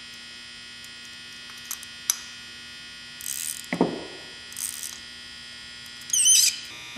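A socket on an extension turning the emulsion valve in a Marvel Schebler carburetor's bowl: a few light metal clicks, two short scraping rasps around the middle with a dull knock between them, and a louder, brief wavering squeak near the end. A steady electrical hum lies underneath.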